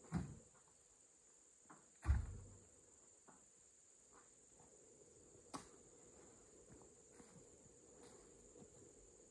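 Steady high buzz of insects, with two heavy thuds, one right at the start and a louder one about two seconds in, and a sharp knock about five and a half seconds in.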